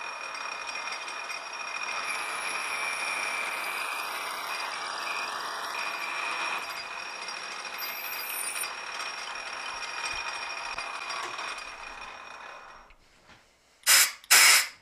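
Metal lathe running while a boring bar takes a cut inside a drilled bore: a steady cutting hiss with a thin high whine, dying away near the end. Two loud, sharp knocks follow just before the end.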